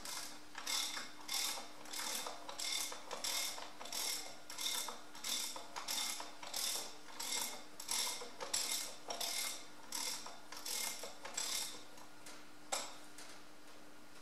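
Hand ratchet wrench clicking in short strokes, about two a second, as a bolt is undone; the strokes stop near the end, with one last click after a short pause.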